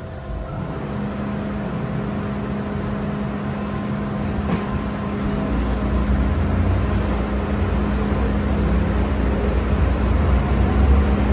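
MTR M-train electric multiple unit pulling away from a station, heard from inside the car: a steady hum sets in, then the low rumble of the train grows louder as it gathers speed.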